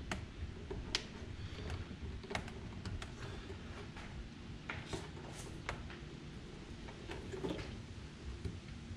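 Scattered light clicks and taps of hands handling a handlebar phone mount while tightening its clamp screw onto a motorcycle handlebar, over a low steady background rumble.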